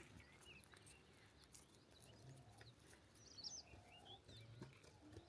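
Near silence with a few faint, distant bird chirps in the forest, clustered a little past the middle.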